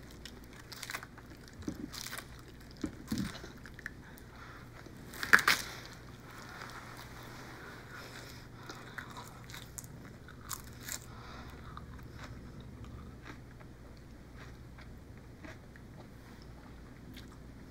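A person biting and chewing crisp lettuce leaves: irregular wet crunches, the loudest about five seconds in, becoming sparser later.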